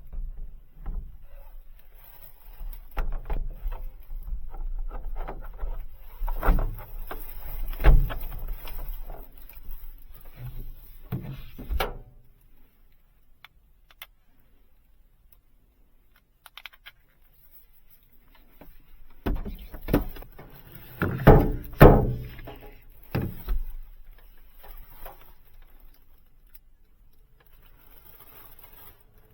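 Irregular thunks and knocks, as of objects being moved and set down, in two busy stretches: one through the first twelve seconds and one about twenty seconds in, with a quiet gap between.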